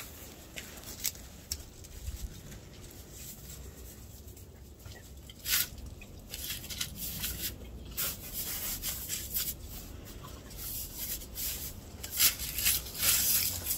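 A dog biting and chewing snow: irregular crisp crunches and clicks, coming more often in the second half.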